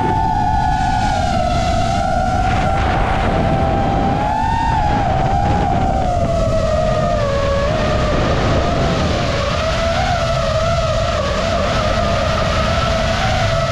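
FPV racing drone's motors and propellers whining, the pitch rising and falling as the throttle changes, over a rumble of wind.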